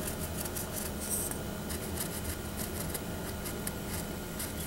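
Pencil point scratching along the surface of a hard smooth-foam ball in short, irregular strokes as a line is traced around it, over a low steady hum.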